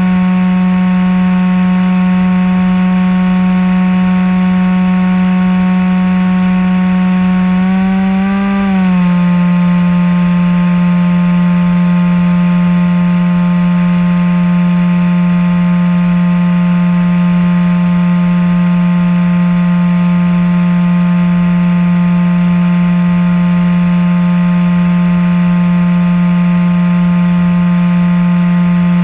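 RC flying wing's motor and propeller, heard from on board, running with a steady drone. About eight seconds in, the pitch rises briefly, then settles back slightly lower.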